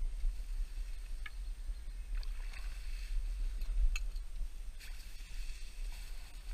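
Wind rumbling on the microphone, with small water splashes and a few sharp clicks as a hooked silver Prussian carp is played at the surface and brought to the landing net.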